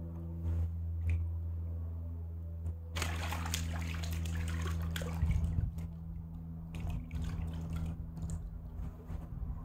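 Water lapping and trickling among shoreline rocks, louder for a couple of seconds about three seconds in, over a steady low hum.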